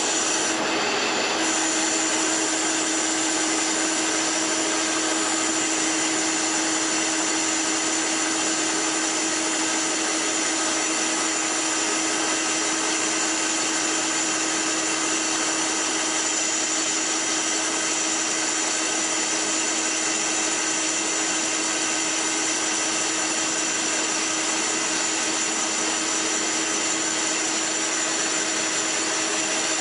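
Kingston gear-head lathe running steadily at 315 RPM while the tool takes a 50-thousandths cut on a flat-belt pulley, a constant machine whine with several steady tones over the cutting noise.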